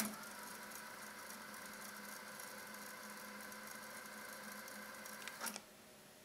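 TEAC V-6030S cassette deck rewinding a tape at high speed: a steady mechanical whir of the transport, starting with a click and stopping with another click about five and a half seconds in.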